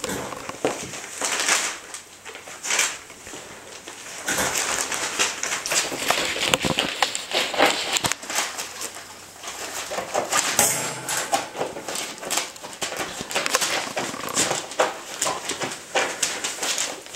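Seven-week-old Chinese Crested Dog puppies making small squeaks and yips over busy scuffling and scratching.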